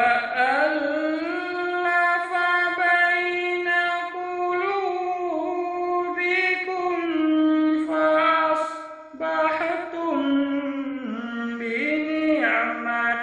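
Man's voice reciting the Quran in melodic tajwid style, drawing out long, ornamented notes. About nine seconds in he breaks briefly for breath, then goes on at a lower pitch and descends step by step.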